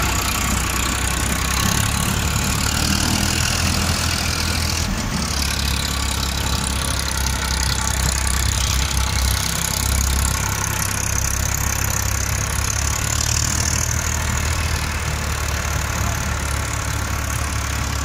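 Farmtrac tractor's diesel engine running steadily at about 1200–1300 rpm under light load, in first low gear, while it drives a soil loader.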